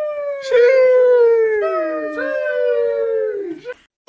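Young kitten meowing in long, drawn-out cries, each sliding slightly down in pitch, several in quick succession and partly overlapping, cutting off just before the end.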